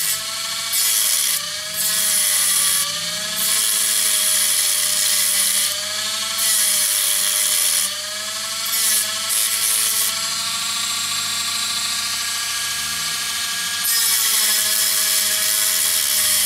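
Dremel rotary tool spinning a cut-off disc against the plastic buffer beam of a model wagon. The motor's whine dips in pitch each time the disc bites, with a hiss of grinding plastic that comes and goes as the work touches the disc.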